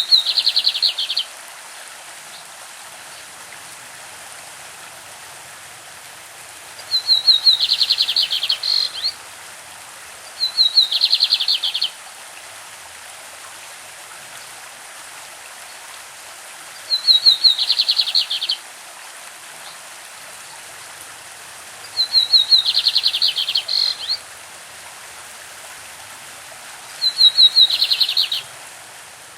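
Lined seedeater (bigodinho) singing its classic song. It repeats a short phrase of rapid, evenly spaced notes, each phrase lasting about two seconds, six times with pauses between. Under the song runs the steady rush of a stream.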